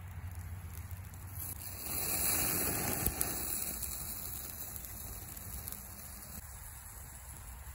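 Wood fire with a stone bass in a wire grill basket over it, hissing and crackling. The hiss swells to a loud sizzle about two seconds in as the turned fish goes back over the coals and the flames flare, with one sharp crack near the peak, then settles back.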